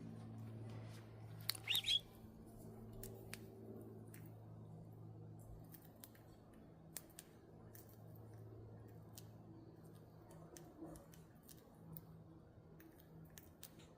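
Scattered sharp little clicks of budgies nibbling at greens, with a short budgie chirp about two seconds in, over a steady low hum.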